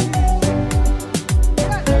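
Background music with a steady dance beat: a deep kick drum about twice a second under cymbals and sustained instrumental tones.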